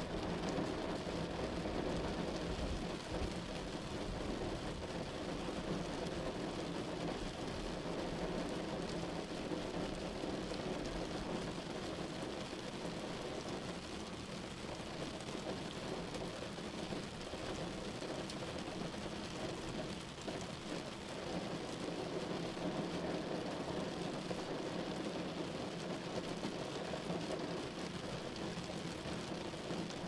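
Steady, unbroken rushing noise from a sleep-sound noise track, heaviest in the low-middle range with a low rumble beneath.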